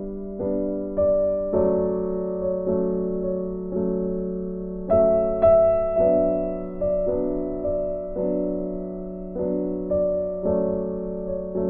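Background music: a soft piano melody, with notes struck a few times a second and left to ring out.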